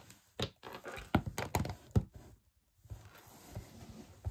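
Rubber-stamping supplies handled on a craft table: several short light knocks and clacks in the first two seconds, then a quieter scuffling.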